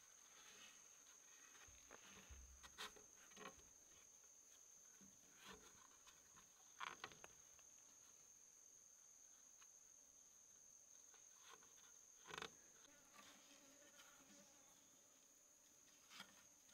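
Faint insect drone: a steady, high-pitched trill from insects such as crickets, with a few soft clicks or knocks scattered through.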